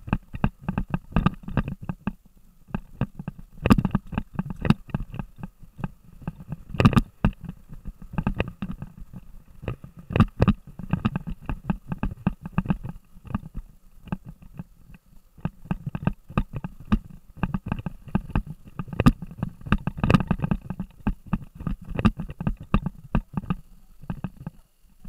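Knocks and rattles of a Kitvision action camera jolting on its mount as a mountain bike rides over a rough dirt trail, many irregular knocks a second over a steady low rumble.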